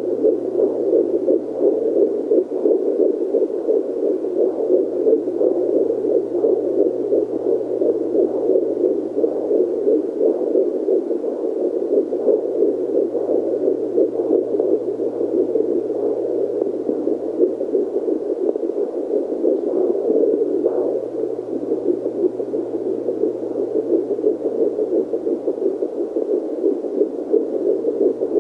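Speaker of an Angel Sounds JPD-100S4 fetal Doppler giving a continuous rushing static, with a faint low hum under it, as the probe is moved over the belly searching for a fetal heartbeat at about eight weeks of pregnancy.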